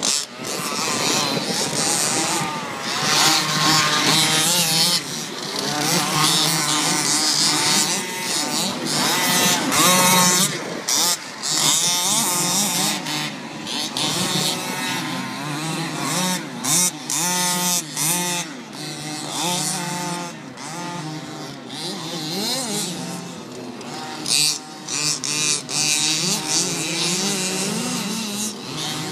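Radio-controlled car's motor running and revving, its pitch rising and falling over and over as the throttle is worked.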